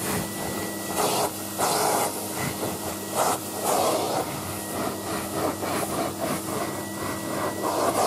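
Numatic Henry HVR200A canister vacuum cleaner running, a steady motor hum under a rushing suction noise that swells and drops several times as it is worked over carpet.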